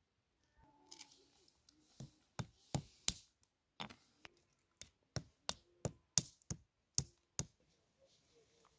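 A hand-held stone knocking down onto a flat rock: about a dozen sharp knocks at uneven intervals, coming in quick runs of about three a second, starting about two seconds in.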